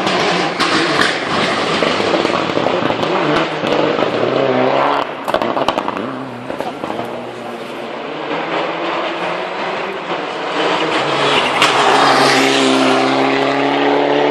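Rally car engine at high revs: the engine note falls as the car goes by, with a run of sharp crackles about five seconds in, then an engine note climbs loudly again near the end.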